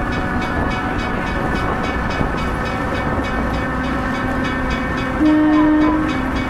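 Steady running noise of a moving train heard from inside the car, with an even rhythmic beat of about three to four a second. About five seconds in comes a single blast of the train's warning signal, lasting about a second.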